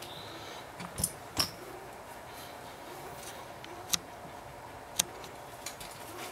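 Quiet room tone broken by a handful of short, sharp clicks and knocks: a dull knock with a click about a second in, then single sharp clicks a little later, near the middle and about five seconds in.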